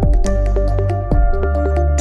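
Electronic intro jingle: synth notes over strong bass and a regular percussive beat.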